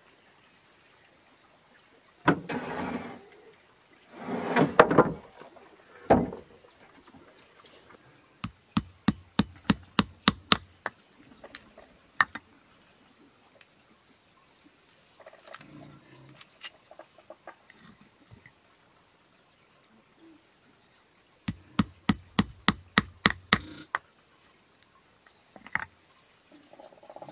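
A corrugated metal roofing sheet being handled, two noisy rattling scrapes and a knock, then two runs of quick light hammer taps on roofing nails with a high metallic ring, about five taps a second for some two seconds each.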